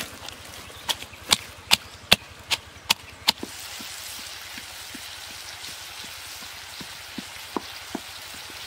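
About seven sharp strikes of a pestle pounding chillies and garlic in a clay mortar, spaced a little under half a second apart. Then, from about three and a half seconds in, pork intestines cooking with a steady sizzle.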